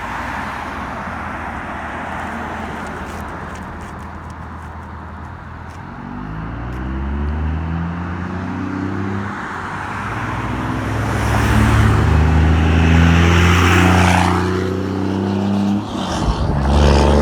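Road traffic passing close on a bridge: tyre noise at first, then a vehicle's engine note growing louder as it approaches and passes about two-thirds of the way through, with another vehicle coming through near the end.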